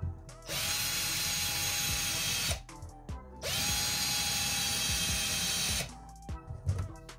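Einhell 18 V cordless drill running twice, each run about two seconds long, with a steady whine as a thin bit drills a small hole into a wooden lure body. The pitch rises as the second run starts. A few clicks come between and after the runs.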